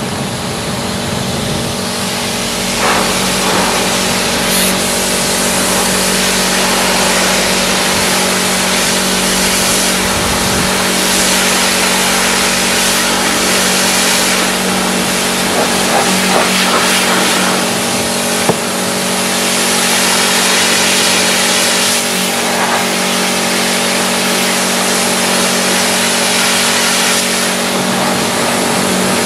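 Pressure washer running steadily, its motor and pump humming under the hiss of the high-pressure jet spraying caked mud off a car's bodywork.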